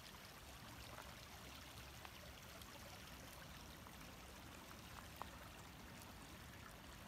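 Near silence with a faint steady rush of water flowing along a stone aqueduct channel, and a single faint click about five seconds in.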